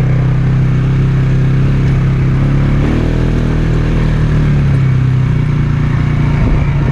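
Polaris Sportsman ATV engine running steadily as it is ridden, its note shifting a little partway through.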